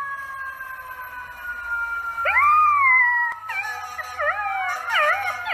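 Golden retriever puppy howling: one long rising-and-falling howl about two seconds in, then a wavering run of shorter howls. Underneath runs a separate long tone that slowly falls in pitch.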